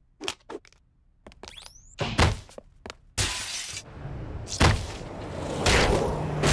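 Cartoon sound effects: a few light clicks and a heavy thump, then glass shattering about three seconds in, followed by a rushing noise with further heavy thuds as a character falls from a building.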